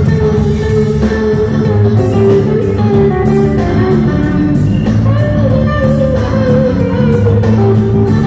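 Live band playing: electric guitar and bass, Hammond organ and drum kit, with a lead line bending up and down through the middle.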